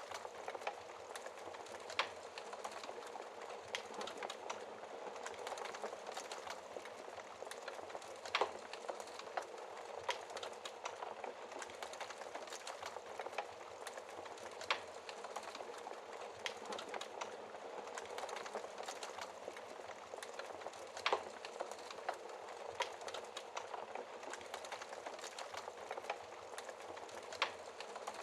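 Wood fire crackling in a fireplace: a steady hiss of small crackles, broken by a louder pop every several seconds.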